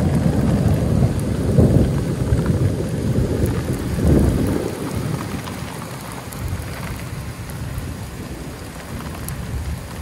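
Rolling thunder rumbling in several swells that die away about halfway through, over steady rain.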